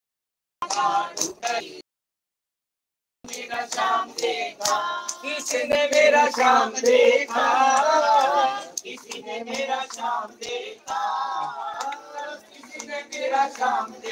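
Several voices singing a devotional hymn (bhajan) together, with hand clapping along. The sound cuts out completely twice in the first three seconds.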